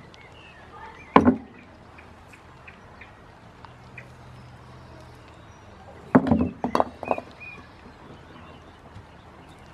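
Concrete paving stones knocking against each other as they are handled: one knock about a second in, then several knocks close together about six seconds in.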